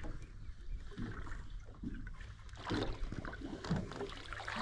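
Water lapping and trickling against the hull of a small boat, in a few short irregular splashes over a steady low rumble.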